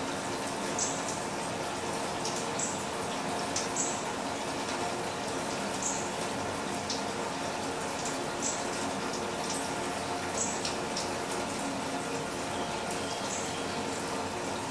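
Rainwater running down a cup-style rain chain: a steady splashing trickle, with sharp drips landing irregularly about every second.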